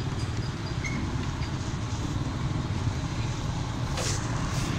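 Slow road traffic heard from a motorcycle: a steady low engine rumble with road noise, and two short hisses near the end.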